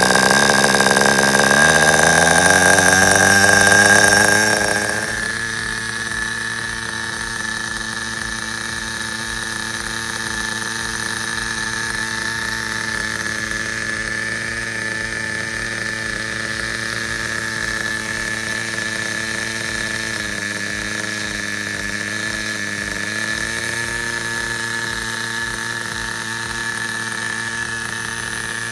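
Kyosho GX12-CR nitro glow engine in a 1/10 RC car starting up. It runs loud, its pitch climbing over the first few seconds. About five seconds in it drops to a steady idle with a constant high whine, and its pitch dips slightly for a few seconds later on.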